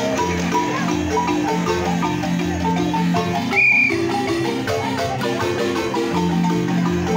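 Live marimba music: rapid struck wooden-bar notes with a rolling melody over a sustained bass, played for street dancing. About three and a half seconds in, a brief high beep cuts in while the music drops out for a moment.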